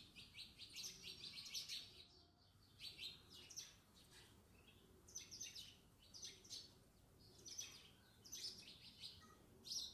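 Faint chirping of small birds: short runs of rapid high notes coming every second or so, with near quiet between them.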